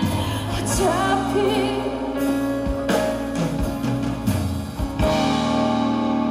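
Live band music with a woman singing a wavering line; several drum strikes through the middle, then a held chord.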